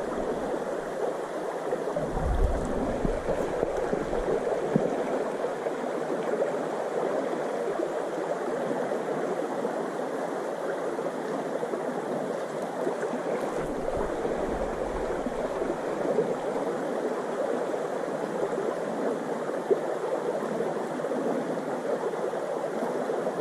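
A small river's water running steadily, a continuous rushing. There are two spells of low rumble, about two seconds in and again around fourteen seconds.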